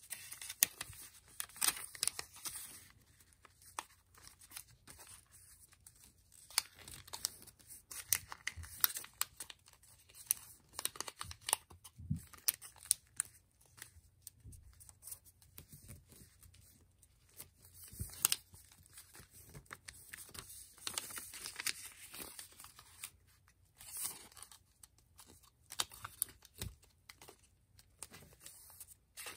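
Sheet of thin kami origami paper being folded and creased by hand: irregular rustling and crinkling with sharp crackles as folds are pressed flat.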